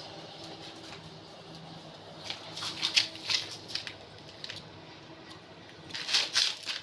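Quick scratchy strokes of a pencil marking a plastered wall, in two clusters, about two seconds in and again near the end, over a faint steady hum.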